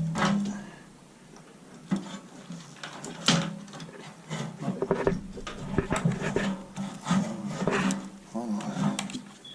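Irregular clicks, knocks and rubbing of metal parts and tools being handled at a gas water heater's burner access, with a low hum underneath.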